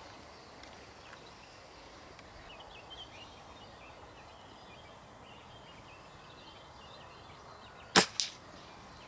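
A spring-powered air rifle fires once about eight seconds in: a sharp crack, then a second, fainter snap a quarter of a second later. Faint birdsong chirps in the background before the shot.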